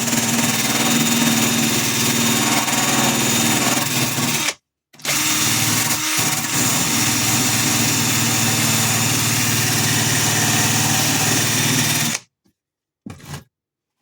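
Handheld electric power tool running steadily at full speed. It drops out for about half a second near four and a half seconds in, runs on again, and stops about twelve seconds in; a brief short burst follows near the end.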